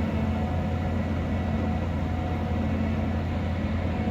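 Bulldozer's diesel engine running steadily, a low, even drone with no change in speed.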